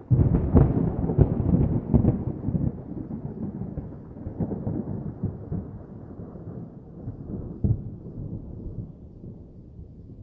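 Thunder: a sudden crash with crackling peaks over the first couple of seconds, then a low rumble that slowly dies away, with one more sharp crack about three-quarters of the way through.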